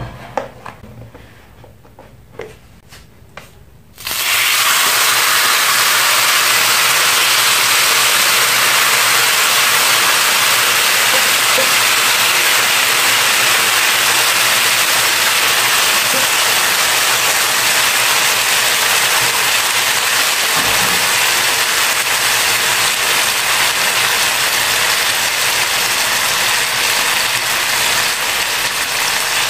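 Beef stir fry sizzling on a hot sizzler plate. The loud, steady hiss starts suddenly about four seconds in as the food goes onto the plate, after a few light clicks.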